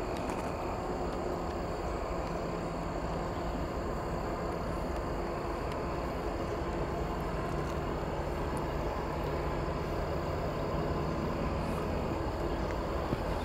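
Kansas City Southern diesel-electric freight locomotive approaching from a distance: a steady low engine drone that grows slightly louder toward the end.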